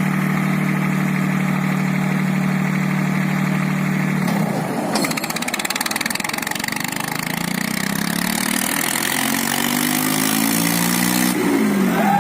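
Tractor diesel engines labouring under heavy load in a tractor tug-of-war. The engine note runs steady, then drops about four seconds in as a harsh rough noise joins it. Over the last few seconds the engine pitch climbs steadily.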